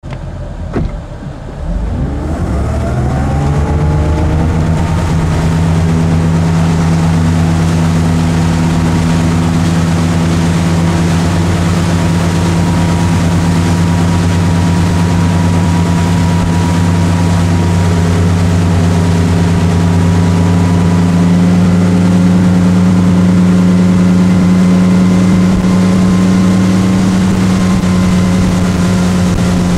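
Tow boat's engine opening up from low revs, its pitch rising over the first few seconds as it pulls the rider out of the water. It then runs steadily at towing speed, with wind and wake noise.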